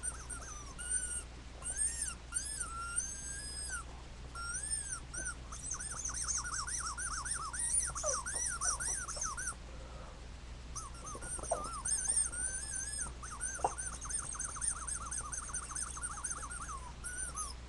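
A squeaky Mew toy being squeezed over and over, giving runs of short, high squeaks that rise and fall in pitch, often several a second, with a short pause about ten seconds in.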